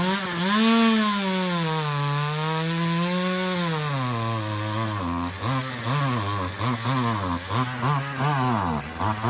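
Echo CS-2511T two-stroke top-handle chainsaw revving up from idle and running at high speed for about four seconds, the pitch sagging and recovering as it cuts wood. From about five seconds in the throttle is blipped repeatedly, about twice a second, the engine dropping back toward idle between blips.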